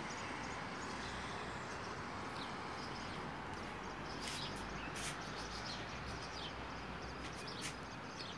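Steady hiss of distant street traffic over a low rumble, with short high bird chirps scattered through it.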